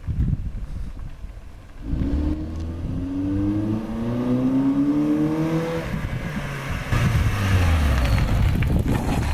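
A car fitted with an exhaust-tip turbo whistle accelerating: the engine's pitch rises steadily for a few seconds, then a louder rush of exhaust and road noise as it passes close. A thin, steady high tone comes in near the end.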